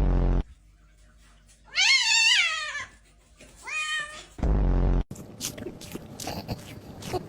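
A domestic cat meowing twice: a long meow rising and falling in pitch about two seconds in, then a shorter one a second later. A brief loud low hum comes at the start and again about four and a half seconds in.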